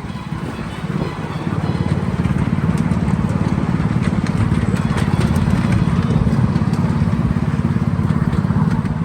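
Miniature railway diesel train running steadily under way, its engine rumbling, growing louder about a second and a half in, with occasional sharp clicks from the wheels and carriages.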